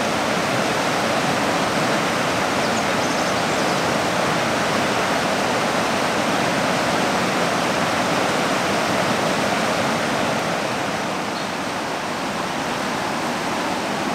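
Steady rush of a fast river running over rapids, a little quieter about ten seconds in.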